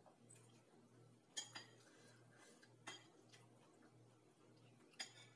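Metal spoon and fork clinking against bowls while eating: three short sharp clinks a second or two apart, over faint room tone.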